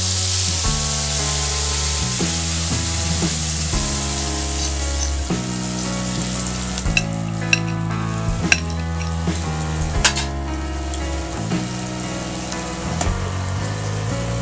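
Tomato, onion and cashew paste sizzling in hot oil in a non-stick frying pan, loudest in the first few seconds as it is poured in, then stirred, with a few sharp clicks of the spoon against the pan around the middle.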